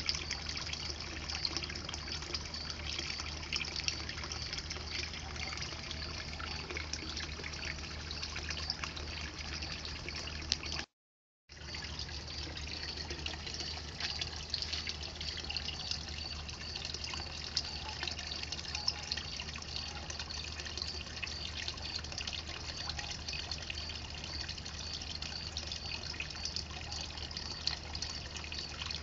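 Water trickling steadily, as from a garden pond, with a faint low hum underneath. The sound cuts out completely for about half a second around the middle.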